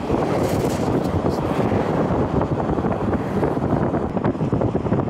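Steady road and engine noise of a car driving along at speed, heard from inside the car, with some wind noise.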